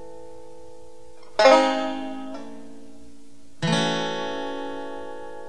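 Music: slow chords struck on a plucked string instrument and left to ring out, a new chord struck about a second and a half in and another a little past halfway.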